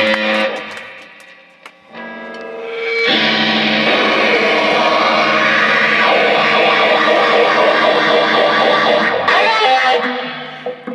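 Live rock band with distorted, effects-laden electric guitar and drums. A guitar chord rings out and fades, a held note follows, then the whole band comes in loud about three seconds in, stops short near nine seconds and rings out.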